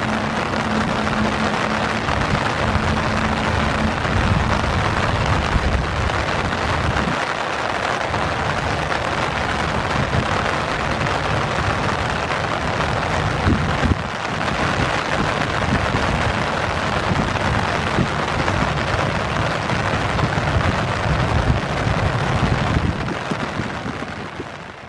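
Heavy tropical rain pouring steadily, a dense even hiss with an uneven low rumble underneath and a faint steady hum in the first few seconds. The sound fades out near the end.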